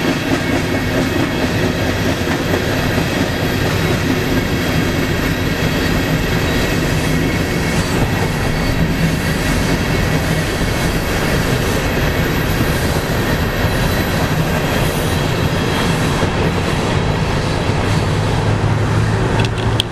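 Freight train of boxcars rolling past, a steady loud rumble of wheels on the rails, heard from inside a car driving alongside, with road and wind noise mixed in. Near the end the train sound gives way to the car's own low road hum.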